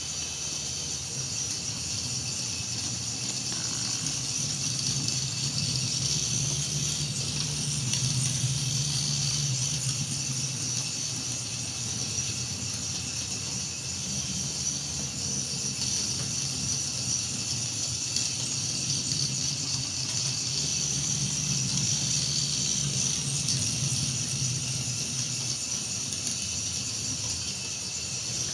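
Small electric drive motors of line-follower robots whining steadily at a high pitch, with a low hum underneath, the whine swelling and easing slightly as the robots steer along the line.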